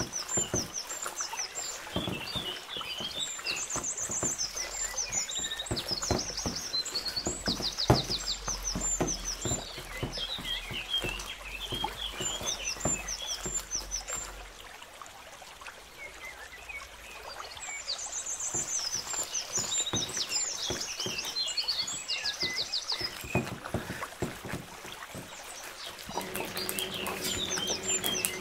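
Gloved hand squishing and turning sliced potato, spinach and onion in a thick, wet gram-flour batter in a plastic bowl: irregular wet squelches and slaps, easing off for a few seconds midway. Birds chirp in short, repeated high trills throughout, and a steady low hum starts a couple of seconds before the end.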